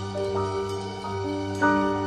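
Instrumental jazz-blues music: slow, sustained chords, with a new chord struck about a third of a second in and a brighter, louder one about one and a half seconds in.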